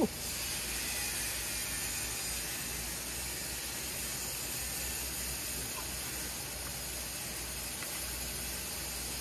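A steady high hiss of background noise, with one brief vocal sound at the very start.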